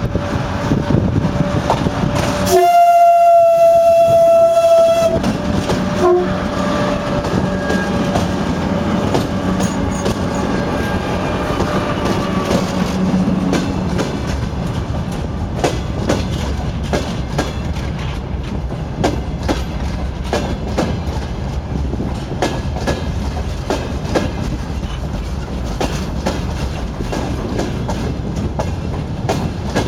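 2TE116 diesel locomotive hauling a freight train. A few seconds in, its horn sounds one loud blast of about two and a half seconds. Throughout, the engine drones and the wheels click over the rail joints.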